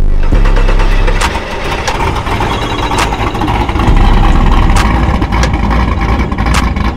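Customized Chevrolet Monte Carlo SS's V8 engine running loudly with a deep, low exhaust, with a few sharp clicks over it.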